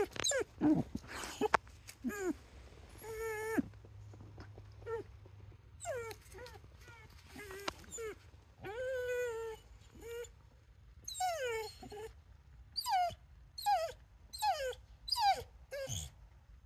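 Vizsla whining in a long series of short pitched calls, many of them falling in pitch, coming faster, about two a second, in the last few seconds. The whining is her sound when she is missing her ball.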